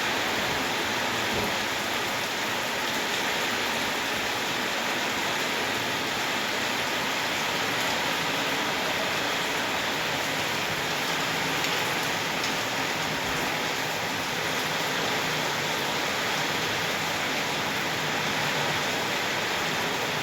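Rain falling steadily, an even hiss that holds at the same level throughout.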